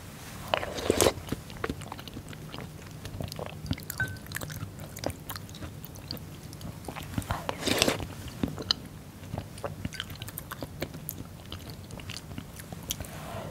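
Close-miked chewing of a mouthful of fermented skate, boiled pork and aged kimchi: wet, crunchy chewing with many small clicks, and louder crunching bites about a second in and near eight seconds.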